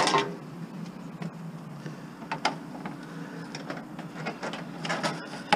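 Scrap metal appliance being shifted and handled, with a loud clatter at the start and scattered knocks and rattles after it, over a steady low hum.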